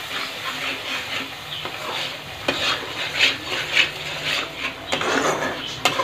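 Metal spatula stirring and scraping a thick masala paste around a kadai, in irregular scraping strokes over a steady sizzle of paste frying in oil. The masala is being fried down until the oil separates.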